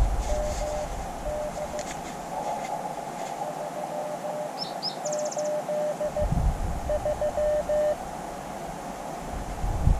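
Morse code (CW) beeping in dot-and-dash groups as a steady tone from an Elecraft KX2 QRP transceiver, over a band of receiver hiss. A bird chirps a few times about five seconds in.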